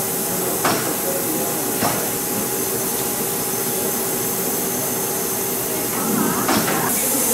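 Class 52 steam locomotive standing with steam hissing, a steady whine underneath and a few sharp metallic knocks; the hiss of escaping steam grows louder near the end.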